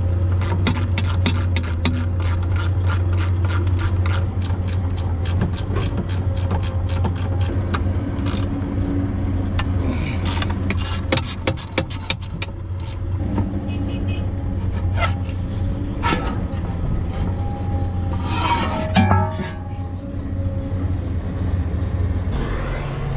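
Ratchet wrench on a 16 mm socket clicking rapidly in runs as panel bolts are backed out of a CAT D6N bulldozer, followed by scattered metal clinks and scrapes as the panel is worked loose. A steady low engine hum runs underneath.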